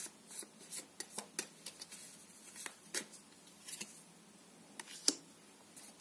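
Tarot cards being shuffled and handled: a run of light flicks and snaps of card stock, with a sharper tap about five seconds in as a card is laid down on the table.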